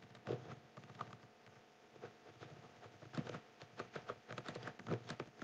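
Typing on a computer keyboard: faint keystroke clicks in irregular quick runs, busiest in the second half.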